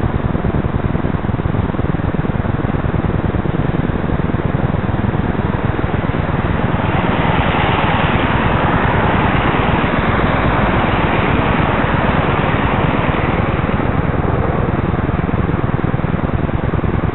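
Road traffic noise, a steady rumble that swells as a car passes close by about seven seconds in and fades again a few seconds later.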